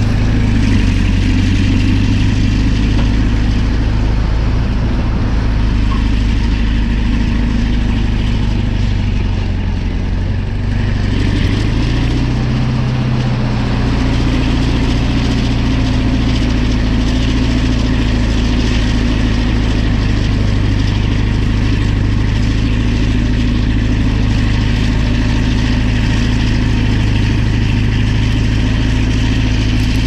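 Caterpillar D11 bulldozer's large diesel engine running steadily under load as the dozer pushes soil into a gully. The engine note dips briefly about ten seconds in, then settles again.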